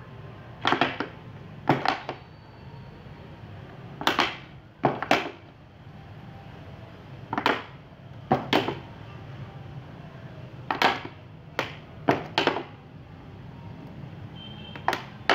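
Thin plastic water bottle crackling and popping in short sharp crackles, mostly in close pairs every couple of seconds, as a candle-heated metal rod is pushed through its wall to melt holes. A steady low hum runs underneath.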